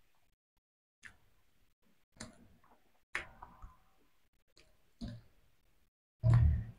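Small, sharp clicks and crackles about a second apart from fingers picking the shell off boiled half-hatched chicken eggs, along with eating mouth sounds. Near the end comes one louder, lower, muffled sound as a piece of egg is bitten.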